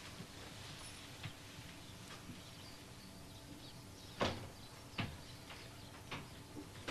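Faint hiss with a few light knocks and clicks from a kitchen cabinet being handled, the clearest about four seconds in and another about a second later.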